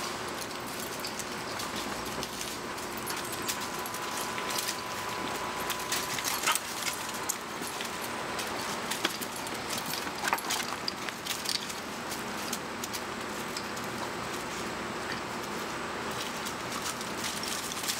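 Puppies wrestling and scampering on dirt and dry leaves: scattered scuffs of paws and jingling collars over a steady hiss, busiest in the middle, with a faint steady tone in the first few seconds.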